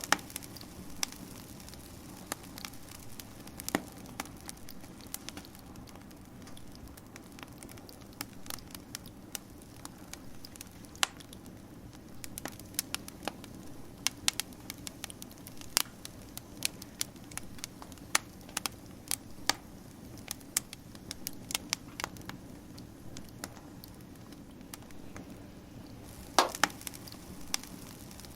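Wood fire crackling: irregular sharp pops and snaps over a steady low background, with a louder burst of pops near the end.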